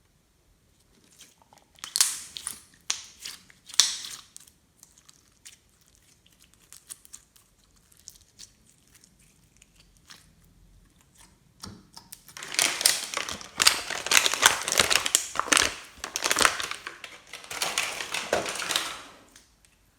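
Crinkling, crunching sounds of slime and its crunchy add-ins being worked by hand: a few short bursts near the start, then a long stretch of dense crackling in the second half.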